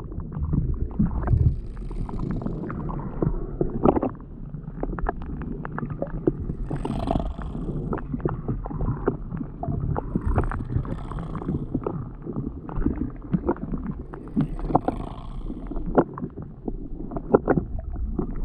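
Water sloshing and splashing close to the microphone, with a low rumble and many sharp clicks and knocks throughout.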